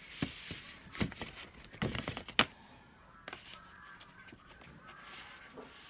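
Cardboard box and record sleeves being handled: several taps, knocks and rustles, the loudest a sharp knock about two and a half seconds in, then quieter handling.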